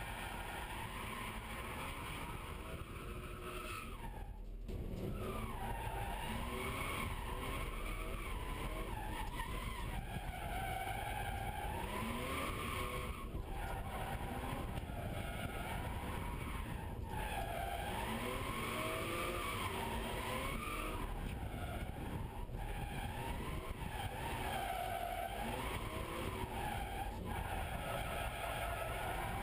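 BMW E36 M3's straight-six engine revving up and down, heard from inside the cabin, with the tyres skidding and squealing as the car drifts from corner to corner. The sound gets louder about five seconds in.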